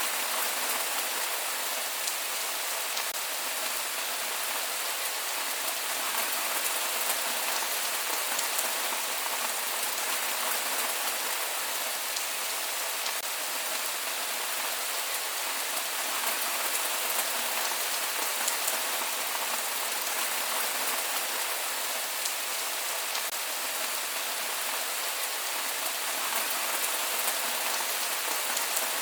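Steady rain falling, a dense even patter of many drops on a surface, with no thunder.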